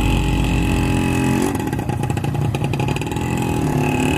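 Motorcycle engine running, its revs high at first, dropping about a second and a half in, then rising again near the end.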